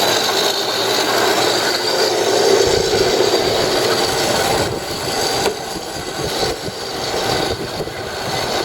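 A 7-by-12-inch horizontal metal band saw running under power: its 1 hp motor and belt drive turn the blade with a steady mechanical whir and a faint high whine. A low rumble joins about two and a half seconds in.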